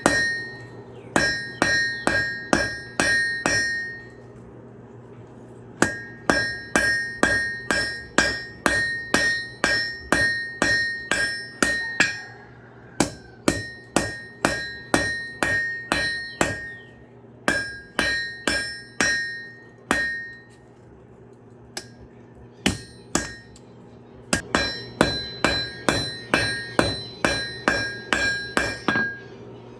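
Forging hammer striking a hot railroad spike on an anvil in runs of quick blows, about two to three a second, each with a clear metallic ring, with short pauses between runs. A steady low hum lies underneath.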